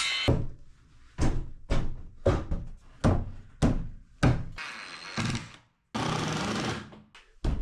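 A run of sharp knocks, about two a second, as panels and framing are worked into place, broken by two bursts of steady noise about a second long.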